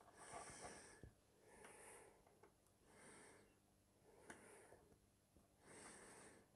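Near silence, with faint soft breaths about every second and a half and a few light clicks.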